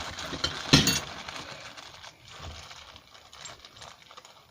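A sharp clink or knock a little under a second in, among fainter clicks of objects being handled, then quieter.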